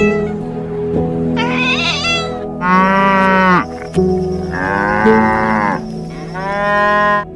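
Farm animals calling, about four separate drawn-out calls with a pitch that bends, over background music with a steady drone.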